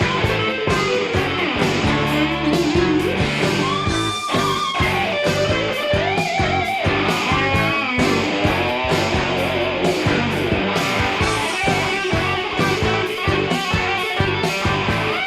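Hard rock band recording: electric guitar playing lead lines with bending notes over bass and a steady drum beat.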